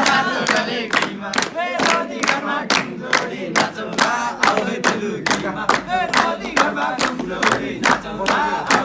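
A group of men singing together in a Nepali dohori folk song, over steady rhythmic hand clapping at about three claps a second.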